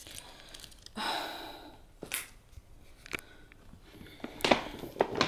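Hands handling baby clothes and gift packaging: a brief soft rustle about a second in, a couple of light taps, then busier rustling and clicking near the end.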